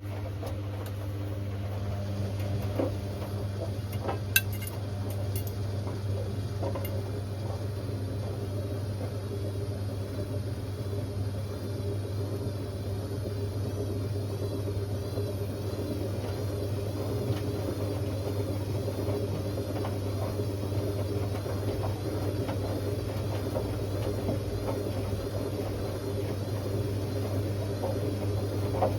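Hotpoint Aquarius WMA50 washing machine running, its motor giving a steady low hum with a sharp click about four seconds in.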